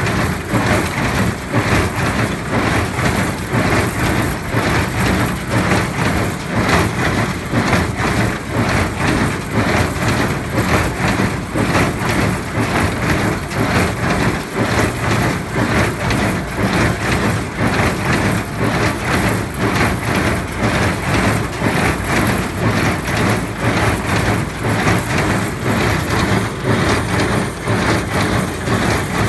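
New Holland small square baler running while baling hay: a steady rhythmic clatter from the plunger and knotter drive, about one to two strokes a second, over a steady drone.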